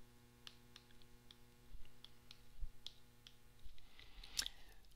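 Faint, irregular taps and clicks of a stylus tip on an iPad's glass screen during handwriting. Under them is a low steady hum that stops a little before four seconds in.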